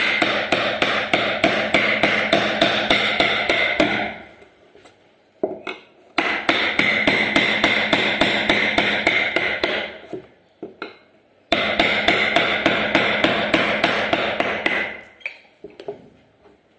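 Fast, even tapping of a carving tool cutting into a wooden door panel, about five or six strikes a second, in three runs of about four seconds each, with a few single knocks in the pauses between runs.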